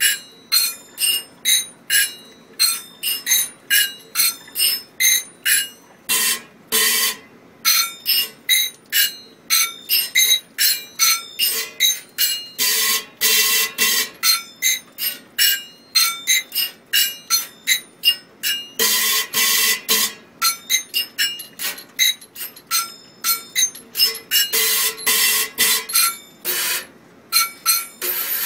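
A ring of metal measuring cups clanged in a quick rhythm against metal kitchenware, played as a percussion instrument. Each hit rings with a bright metallic tone, and every few seconds the strikes run together into a short, dense flurry.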